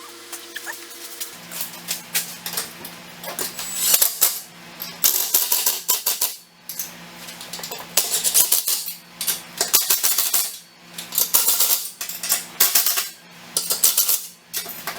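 Impact driver tightening the nuts on the U-bolts that clamp a fan mounting plate to a greenhouse bow, hammering in several bursts of a few seconds each with short pauses between them.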